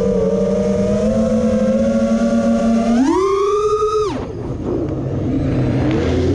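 Mini quadcopter's brushless motors and propellers whining in flight. The pitch holds steady, rises sharply about three seconds in as the throttle is punched, drops steeply a second later as the throttle is cut, then climbs again near the end. There is a twitchy roughness in the motors that shows gyro noise and prop wash oscillation are still upsetting the tune.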